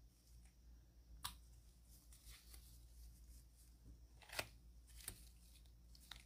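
Faint scraping and clicking of nail-stamping tools on a metal stamping plate. Three sharp clicks stand out: one about a second in, the loudest about four and a half seconds in, and another about five seconds in.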